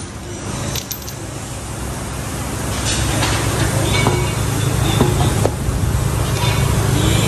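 Light metallic clinks and knocks as an alloy wheel is fitted onto a car's rear hub and turned by hand to line up its bolt holes, over a steady low hum that grows louder.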